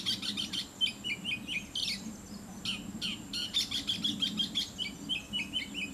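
Oriental magpie-robin singing: a quick, varied run of short whistled and chirping notes, phrase after phrase with brief pauses between.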